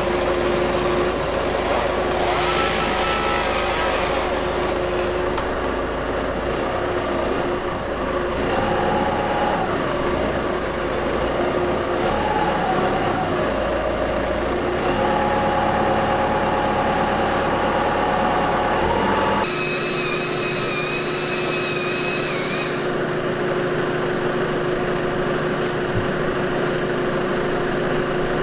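Heavy machinery engine running steadily, its pitch rising and falling through the middle stretch. About two-thirds through the sound changes abruptly and a hissing noise joins for a few seconds.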